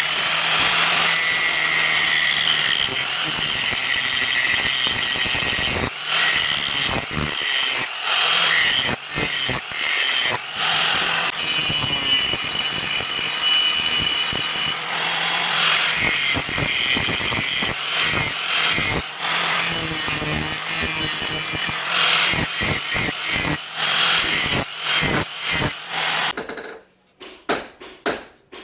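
Power grinder working the steel of a car leaf spring: a steady motor hum and high whine, the grinding sound breaking off and resuming many times. About two seconds before the end the motor stops, and a few sharp taps follow.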